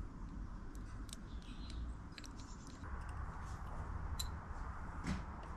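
Faint scattered clicks and light taps of small bicycle front-hub parts being handled, over a low steady rumble.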